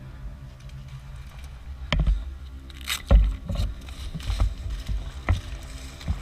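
Irregular knocks, thumps and scuffs of movement and gear handling picked up by a helmet-mounted GoPro, the loudest about two, three and five seconds in, over a faint steady hum.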